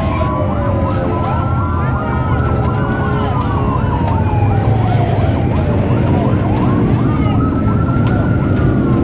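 A siren wailing, slowly rising and falling, with a faster chirping siren over it, above the low rumble of ATV and side-by-side engines pulling away.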